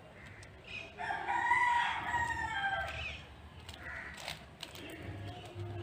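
A rooster crowing once, a long call of about two seconds that rises and then falls. A few sharp clicks follow from the plastic cube being turned.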